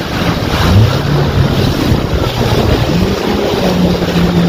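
Jet ski engine running under way. Its pitch rises about a second in, then again about three seconds in, and holds. Over it are wind buffeting the microphone and water spray rushing off the hull.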